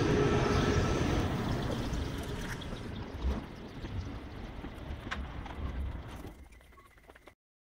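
Footsteps of a person walking on pavement over a steady background of outdoor street noise with a low rumble. The noise fades, then cuts off abruptly near the end.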